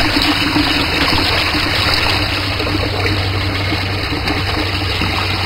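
Water running steadily through a tabletop scale model of a dam: a valve keeps filling the reservoir box while a stream pours out of a small copper outlet pipe. A low steady hum sits underneath.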